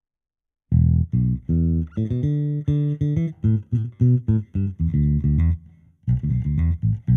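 Ample Bass J virtual jazz bass playing a bass line of separate plucked notes, starting under a second in, with a short break near the end before it picks up again. Its tone is punchier and more nasal than a Precision Bass.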